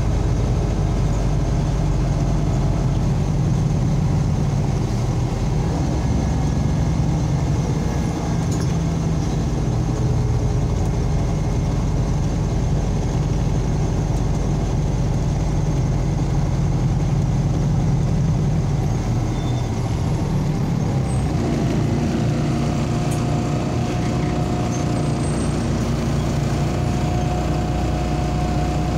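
MAZ-203 city bus running on the road, heard from inside the passenger cabin as a steady engine hum with road noise. About twenty seconds in, the engine note falls as the bus slows down.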